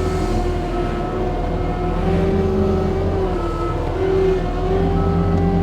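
Diesel engine of a compact machine running at working speed while driving a hydraulic forestry mulching head: a steady engine drone with several whining tones that waver slightly in pitch.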